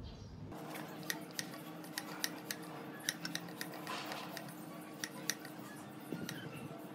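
ROCKBROS aluminium-alloy mini hand pump being worked on a scooter tyre valve: irregular sharp metallic clicks as the pump body and hose fittings are handled, with a brief soft rush about four seconds in.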